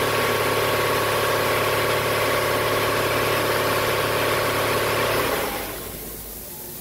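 A steady motor running with a fixed-pitch hum, fading out about five seconds in.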